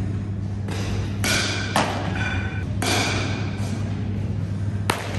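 Baseball catch: a ball smacks into a leather glove about a second and a half in, and again near the end on the return throw, two sharp pops over a steady low hum.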